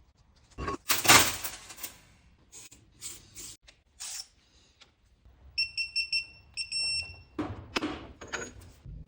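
Metal parts knocking and scraping, loudest about a second in, then two quick runs of high electronic beeps a little past the middle, followed by more knocks.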